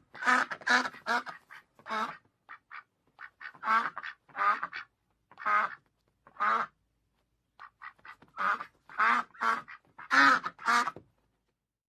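A duck quacking repeatedly in irregular runs of short, nasal calls with brief pauses between them, stopping about a second before the end.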